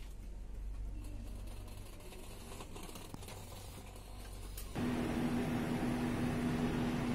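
Low background rumble, then, about two-thirds of the way in, a steady mechanical hum with a low drone starts abruptly and runs on at a louder level.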